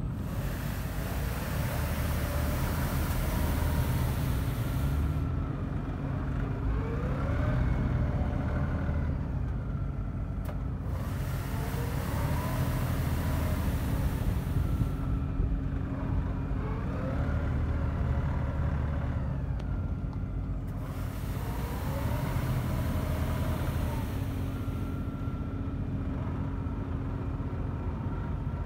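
LS XR3135 compact tractor's diesel engine running steadily, with a rising whine repeating every few seconds as it drives. A stiff brush broom on the front loader sweeps the pavement with a scratchy hiss in three spells of about four seconds each.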